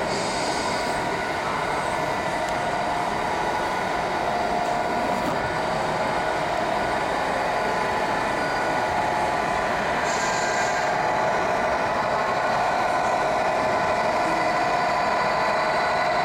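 Radio-controlled model tow truck's sound unit playing a diesel engine running steadily, with two short hisses, one at the start and one about ten seconds in.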